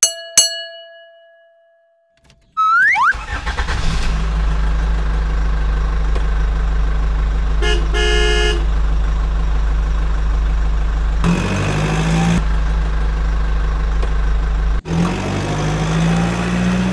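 A bell-like chime at the start, then a short rising whoosh, then a loud, steady truck engine sound. Two short horn honks come about eight seconds in, and a brief noisy burst follows around eleven seconds. After a short break near the end, the engine sound resumes.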